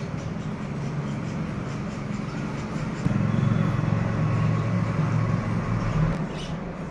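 A low, steady engine-like hum that grows louder about halfway through, then cuts off suddenly shortly before the end.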